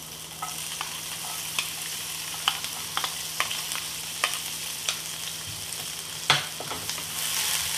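Chopped onions sizzling in hot oil with cumin seeds in a frying pan: a steady hiss dotted with sharp pops and crackles, and one louder tap about six seconds in. The sizzle grows a little louder near the end.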